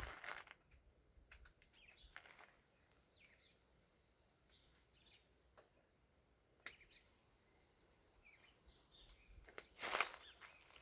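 Quiet outdoor ambience with small birds chirping faintly now and then, and a brief louder noise near the end.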